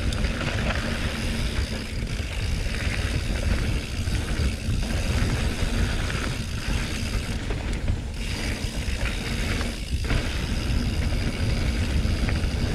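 Mountain bike rolling fast down a dirt singletrack: tyres on dirt and the bike rattling, with the rear freehub clicking, over a steady low rumble.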